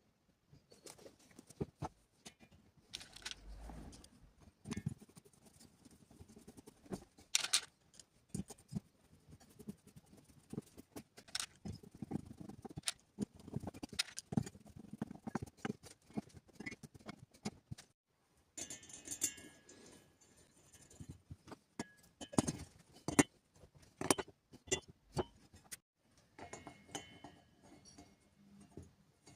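Hand tools and small parts being handled during a repair: irregular light clicks, taps and knocks, with brief metallic clinking.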